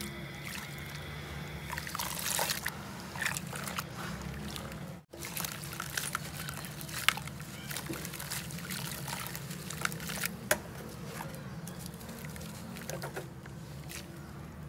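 Hands sloshing and squeezing red dirt water in a basin, with gritty crackles and trickles as dry sand-cement chunks crumble into the water. The sound cuts out for an instant about five seconds in.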